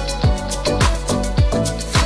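Background music with a steady beat: a drum hit a little more than every half second over sustained bass and melodic notes.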